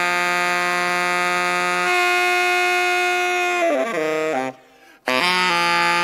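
Background music: a long held chord, then a short run of stepped notes that breaks off for about half a second before the next phrase starts about five seconds in.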